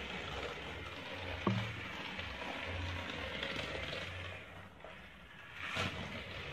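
Small battery-powered light-up toy car running around a flexible plastic race track, its little motor and wheels making a steady mechanical clatter, with a sharp click about a second and a half in.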